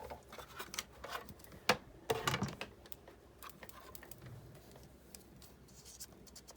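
Scattered clicks and light taps of a die-cutting machine's plastic cutting plates and metal die being handled and pulled apart, the loudest knocks about a second and a half and two seconds in.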